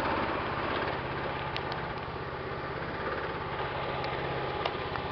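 Small engine of a 1/8th-scale ride-on locomotive idling steadily with an even low pulse, with a few light clicks.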